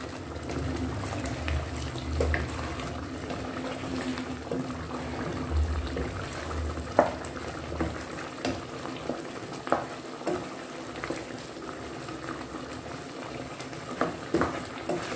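Thick chicken curry sauce simmering and bubbling in a pot on medium heat while a wooden spoon stirs it, with scattered pops and light knocks throughout and a few sharper ones about halfway and near the end.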